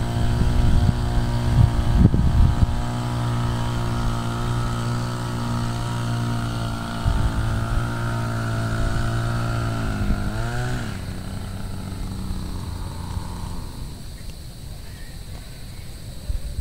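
An engine running steadily nearby, then winding down in pitch and stopping about eleven seconds in. A few low rumbles in the first few seconds.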